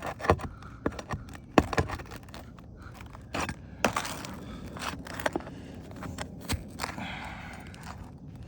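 Steel roofing flat bar scraping and prying under asphalt shingles as nails are worked out, giving an irregular string of sharp clicks and scrapes, the loudest about a second and a half in. The shingles are brittle enough that the nails pull through them.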